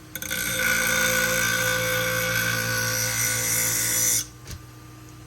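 A pinking-shear blade being drawn across the spinning abrasive wheel of a Twice As Sharp sharpener: a steady grinding hiss with a hum that lasts about four seconds, then stops. This is a sharpening pass putting a fresh edge on all the teeth of the blade.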